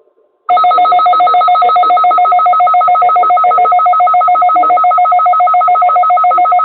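Weather radio warning alarm during its weekly test: a loud electronic alert of two steady pitches, pulsing rapidly about eight times a second, starting abruptly about half a second in.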